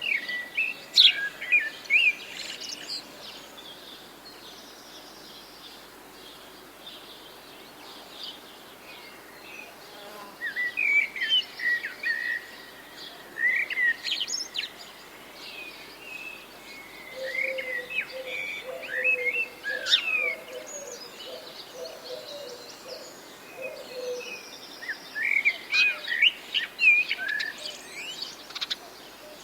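Wild birds chirping and singing in several bursts of short, quick notes over a steady faint background hiss. A lower run of rapid repeated notes comes in about midway.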